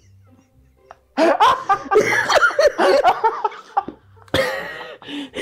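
People laughing, breaking out about a second in after a near-silent pause and carrying on hard.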